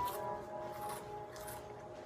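Background music with held tones, and a few crisp crunches of Hot Fries corn snacks being chewed, near the start, about a second in and again shortly after.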